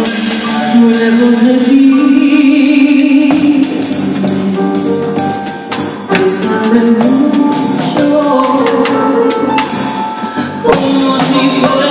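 A woman singing a song live into a microphone with band accompaniment, punctuated by frequent sharp percussion hits.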